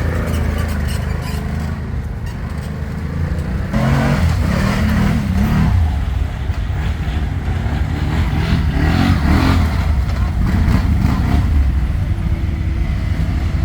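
ATV engine running under way, its pitch rising and falling with the throttle several times.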